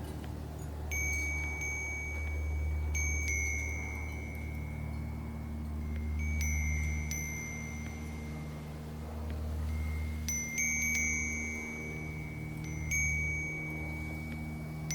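Wind chime swinging in the wind, its chimes struck at irregular moments every second or few and ringing on in a few high notes. A steady low rumble runs underneath.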